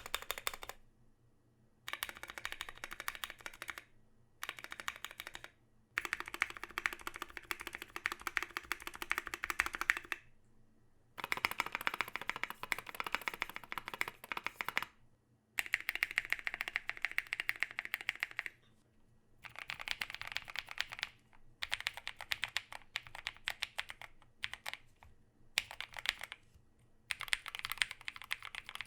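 Typing on a 60% aluminum-plate mechanical keyboard (Tofu case, DZ60RGB hot-swap board) fitted with Holy Panda tactile switches lubed with Krytox 205g0 and SA-profile PBT keycaps. The keystrokes come in runs of one to four seconds with short pauses between them.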